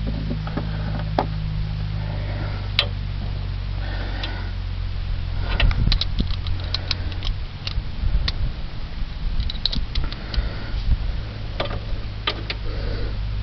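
Dodge Ram truck engine idling steadily as a low hum, with irregular metallic clinks and taps of wrenches and sockets on the sway bar link's nut and bolt.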